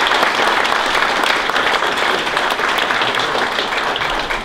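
An audience applauding, many hands clapping together; the applause starts to fade near the end.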